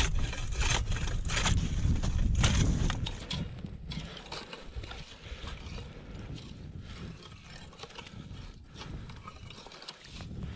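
A long metal bar jabbing down into the ice of a fishing hole, sharp strikes about two a second for the first three seconds. Then quieter, irregular scraping and crunching as a hand ice saw works through slush and ice in the hole.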